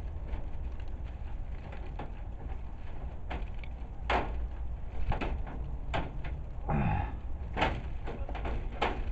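Gloved hands working a chicken-wire mesh barrier into place over dry leaves: irregular rustling and scraping with sharp clicks of the wire, several louder clicks in the second half and one brief falling squeak.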